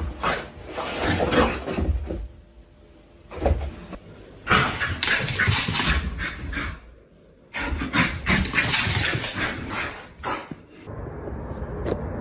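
A dog, heard in several separate stretches of noisy sound that start and stop abruptly.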